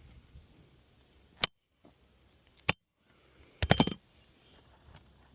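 Nails being driven into a 3-tab asphalt shingle roof: two single sharp strikes about a second apart, then a quick cluster of several strikes a little after the middle.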